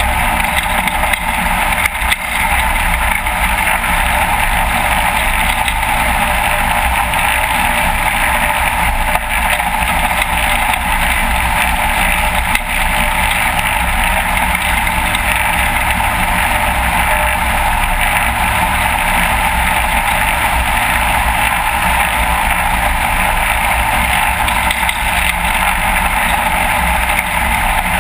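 Light aircraft's piston engine and propeller running steadily at low power as the plane taxis across lake ice, a constant loud drone with no change in pitch.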